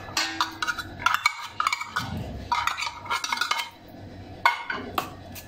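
A metal spoon clinking and scraping against a stainless steel bowl while a thick sauce is stirred: irregular light clinks, with a short lull a little past halfway.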